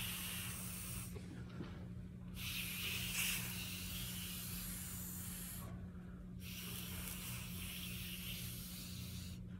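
Breath blown hard through a thin drinking straw onto wet watercolour paint, a breathy hiss: a blow that ends about a second in, then two long blows of about three seconds each, with short pauses for breath between them.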